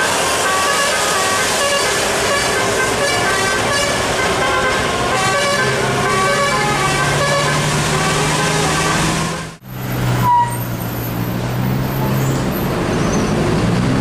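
Bus telolet horn playing a tune of short, changing notes over road noise, cutting off abruptly about nine and a half seconds in. A low steady engine hum follows, with one brief beep.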